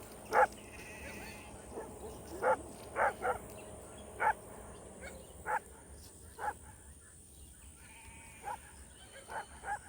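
Livestock guardian dog puppies barking: about ten short, high yips at irregular intervals.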